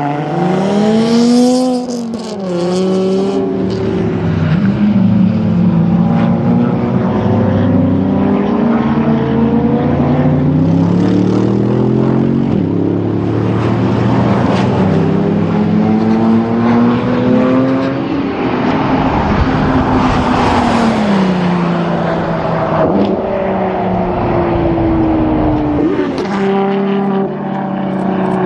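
Ferrari 599 SA Aperta's V12 running hard on a race track, its pitch repeatedly climbing and dropping again through gear changes and as the car passes. About two-thirds of the way in a rush of noise swells as it goes by close.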